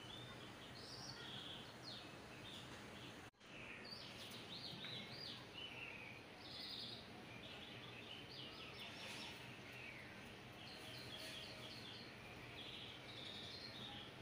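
Small birds chirping over a steady low background hiss: short high chirps and quick rattling runs of notes come again and again. All sound cuts out for an instant about three seconds in.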